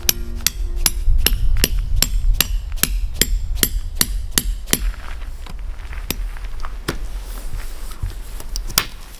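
A hammer driving a steel tent peg into the ground, struck steadily about two and a half times a second with a sharp ringing knock, then slowing to a few spaced strikes.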